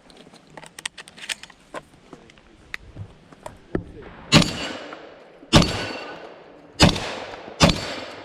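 Shotgun firing four loud blasts roughly a second apart, each trailing a long fading echo, starting about halfway through. Before them come scattered light clicks and knocks and one smaller sharp crack.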